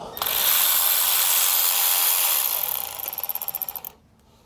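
Cordless electric ratchet spinning out an 8 mm ignition-coil harness ground bolt: a steady whir for about three seconds that breaks into a rapid stutter and stops just before four seconds in.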